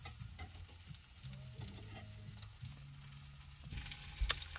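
Faint sizzle of chicken frying in a pan, over a low steady hum, with one sharp click near the end.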